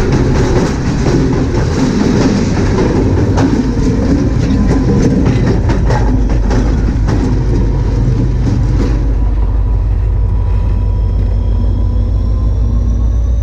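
Norfolk Southern freight cars rolling directly overhead on the track: a loud, steady low rumble and rattle with repeated sharp clicks of wheels over the rail. About nine seconds in the rattle and clicking stop as the last car clears, leaving a lower rumble with a faint rising whine.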